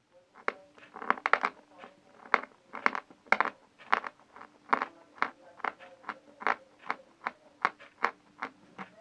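A person chewing a piece of Vasilpolye natural chalk: crisp crunches about twice a second, growing softer toward the end as it turns to paste.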